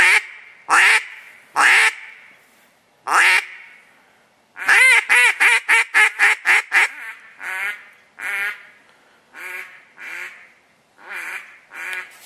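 Duck call blown by a hunter: a few loud, spaced single quacks, then near the middle a fast run of about ten quacks that fades in loudness, followed by softer, spaced quacks.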